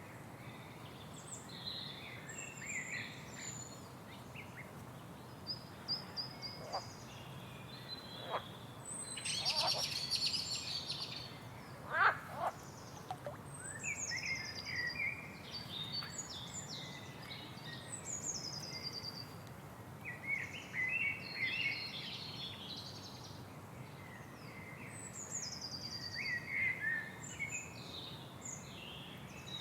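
Several birds singing and calling: many short chirps and quick descending whistles, busiest around the middle and again near the end, over a steady low background noise.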